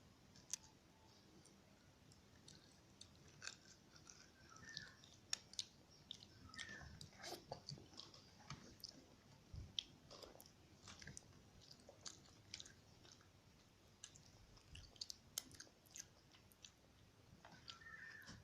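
Quiet, close-up chewing and biting of chicken rice: irregular soft mouth clicks and small crunches.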